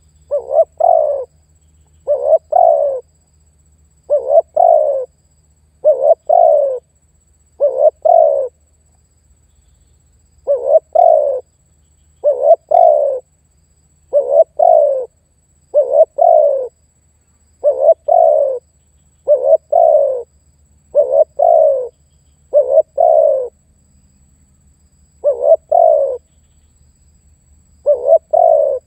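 Male spotted dove cooing: a rough coo phrase of two or three quick notes, each falling in pitch, repeated about every two seconds, with a couple of slightly longer pauses.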